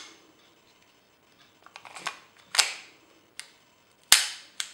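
Metallic clicks and clacks of a Sig Sauer Mosquito .22 pistol being handled and its action worked after reassembly. There are a few separate sharp clicks, with the loudest clack about four seconds in and a last click just after it.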